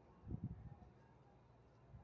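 Near silence: faint outdoor ambience, with one brief low rumble about a third of a second in.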